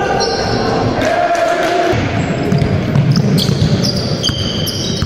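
Basketball bouncing on a hardwood sports-hall floor, with sneakers squeaking in short high chirps as players cut and stop. Players call out now and then, and the sounds echo around the large hall.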